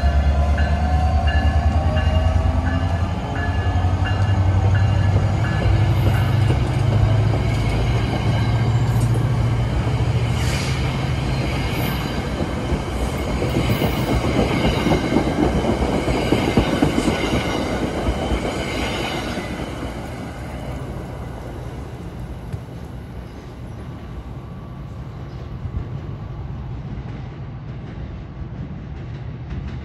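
NJ Transit passenger train passing close at speed: a low hum and the rushing rumble and clatter of steel wheels on rail, loudest about halfway through, then fading as the train pulls away.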